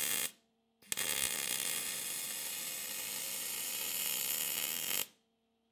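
MIG welding arc crackling as a bead is laid along a steel chassis joint. A short run stops just after the start, and a second run starts about a second in and keeps going steadily for about four seconds.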